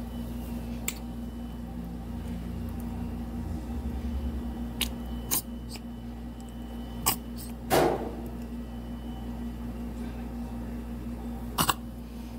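Scattered sharp clicks and taps of kitchen containers and utensils being handled while ingredients go into a sauce, with one slightly longer noise about eight seconds in. A steady low hum runs underneath.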